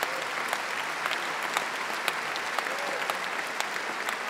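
Large crowd applauding steadily in an arena, a dense mass of clapping with sharper individual claps standing out.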